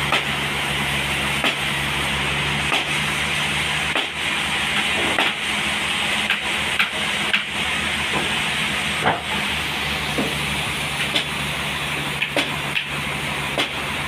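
Sawmill running steadily through a trembesi (rain tree) log: an even machine hum under a hiss of sawing, with scattered small ticks and knocks.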